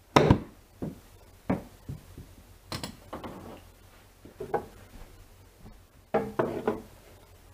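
Golf club striking a ball off a hitting mat on a small chip shot: one sharp click a moment in, the loudest sound. Several quieter knocks and thuds follow, with a short cluster of them near the end.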